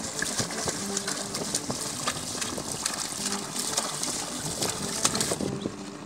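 Oxen hooves and a wooden plough squelching and splashing through a flooded, muddy paddy field: irregular wet clicks and splashes. They thin out about five and a half seconds in.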